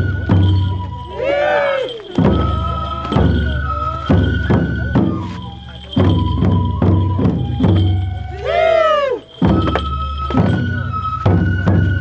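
Japanese folk festival music: a taiko drum beating a repeating pattern under held, stepping bamboo-flute (fue) notes. A high swooping call rises and falls twice, about a second in and again about eight and a half seconds in.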